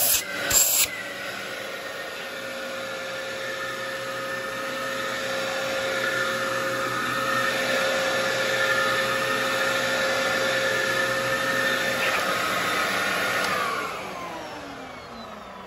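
Dyson DC07 upright vacuum cleaner running over carpet with a steady motor whine, after a few clunks in the first second. About two seconds before the end the motor winds down with a falling whine.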